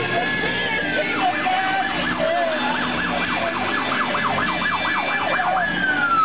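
Emergency vehicle siren going by: a held wail switches about a second in to a fast yelp, about four or five wavers a second, then drops back into a long falling wail near the end.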